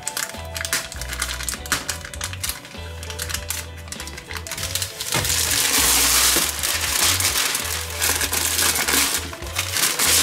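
Aluminium foil chocolate wrapper crinkling as it is folded back. From about five seconds in, a louder rustle of baking paper being unrolled over a baking tray, all over background music.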